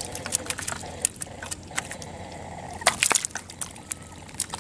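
Hands groping in shallow muddy water and wet mud, splashing and squelching, with many short, sharp wet clicks and slaps. A louder cluster comes about three seconds in.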